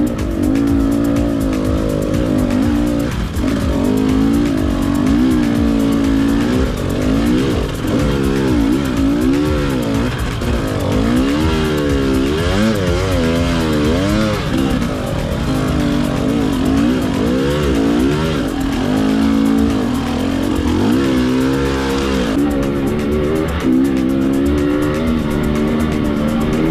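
Dirt bike engine revving up and down under changing throttle, its pitch rising and falling every second or two.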